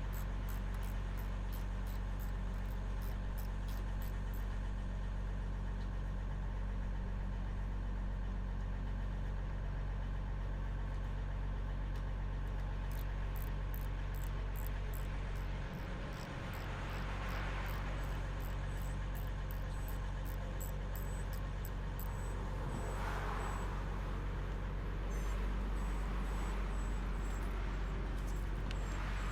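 Steady low hum of an engine running, as from a motor vehicle idling, with faint rapid ticking over it through much of the time.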